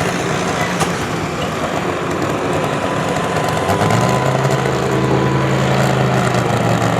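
Pulling tractor's engine running steadily; about four seconds in, a louder, deeper engine note comes in and holds.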